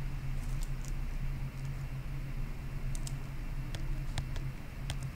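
Steady low electrical hum with a few faint, sharp clicks scattered through it.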